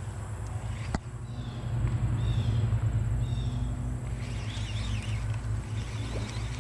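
A steady low motor hum, with a single click about a second in and several short bird chirps over it.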